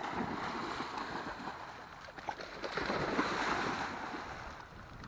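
Water splashing and churning as several dogs run and leap through shallow lake water, swelling to a heavier splash about three seconds in.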